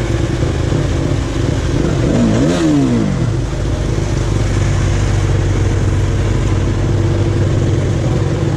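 KTM 200 Duke's single-cylinder four-stroke engine idling steadily, with one short rev that rises and falls about two seconds in.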